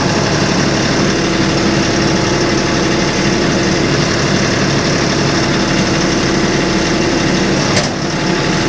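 Massey Ferguson tractor engine running steadily at a constant speed, with a brief knock near the end.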